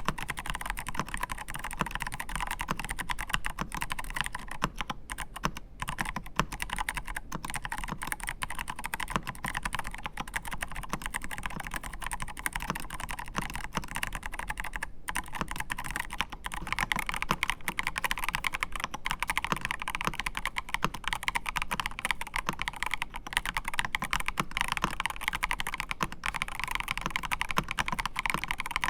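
Typing on a MelGeek Pixel mechanical keyboard: a fast, continuous stream of keystroke clacks.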